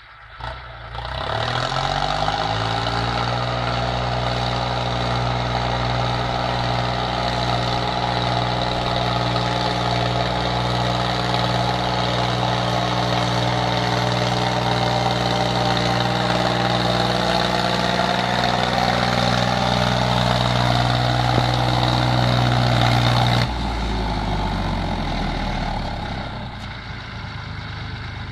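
International 453 tractor's diesel engine running under load while pulling a plough, its pitch rising over the first two seconds and then holding steady. About 23 seconds in the sound drops abruptly, and a quieter engine sound carries on.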